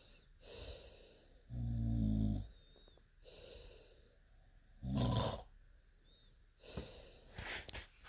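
Snoring: deep, rumbling snores about every three seconds, two in all, with softer, airy breaths between them.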